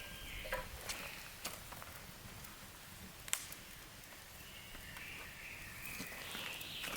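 Scattered faint snaps and clicks of dry twigs and branches underfoot or being handled in woodland, with one sharper snap about three seconds in. A high buzzing trill, like a bird or insect call, comes in over the last two seconds.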